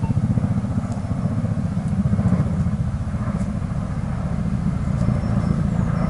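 A steady low rumbling noise with a rapid flutter in it.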